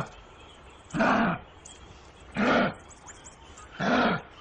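Kangaroo calling: three short grunting calls, evenly spaced about a second and a half apart, each rising and falling slightly in pitch.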